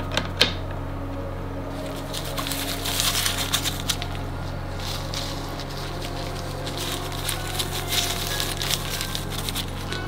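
Small stones clicking against rock as they are set in place, then a gritty, crackling scrape of a sand-and-silicone-adhesive mixture being pressed into the gaps between rocks, in uneven spurts.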